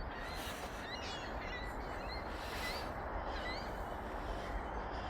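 Several short, high bird chirps scattered over a steady low background noise.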